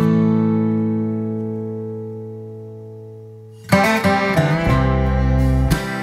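Background music: a strummed guitar chord rings and slowly fades, then about four seconds in the song comes back in with rhythmic strumming over a low bass.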